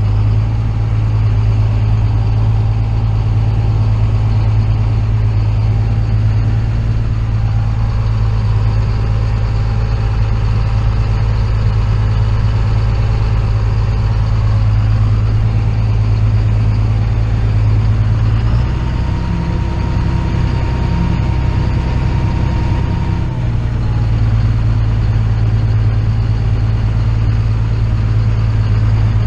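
Large farm-machine engine running steadily with a strong low drone; for a few seconds in the middle a thin higher whine joins and the low tone shifts, then it settles back.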